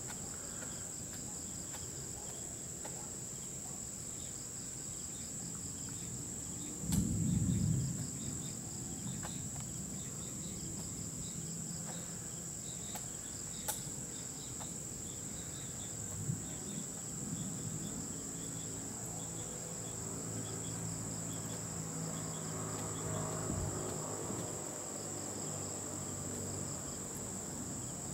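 Night insects chirring in a steady high-pitched drone, with a brief low rumble about seven seconds in.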